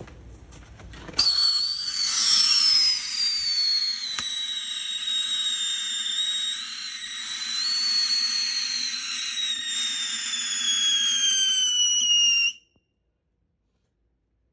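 Whistling firework burning inside a speaker cabinet: one long high whistle that starts suddenly about a second in and slowly falls in pitch, then cuts off abruptly near the end.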